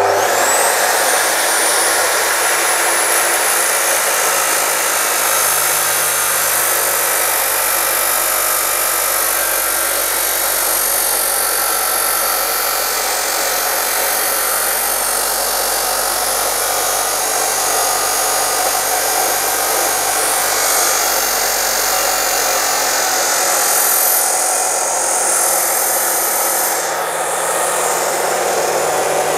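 DeWalt D28730 14-inch abrasive chop saw, a 2300-watt motor, spinning up with a rising whine and then cutting through a thick steel wide-flange beam. Its abrasive wheel grinds through the 6 to 9 mm steel with a loud, steady, screaming grind under heavy load.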